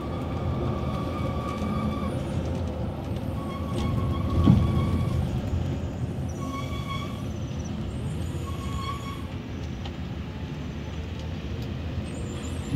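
Scania coach running at speed, heard from inside the driver's cab: a steady engine and road rumble with a single thump about four and a half seconds in. A horn sounds four times in blasts of half a second to two seconds each.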